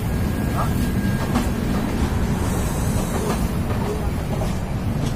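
Indian Railways express coaches rolling past on the track: a steady low rumble of steel wheels on rails, with faint clicks over the rail joints.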